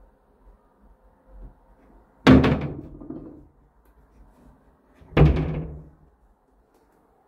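Two wooden cabinet doors slammed shut, one after the other, about three seconds apart. Each gives a sharp bang with a short hollow rumble from the cabinet body.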